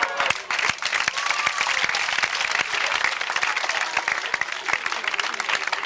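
Audience applauding, with many hands clapping densely.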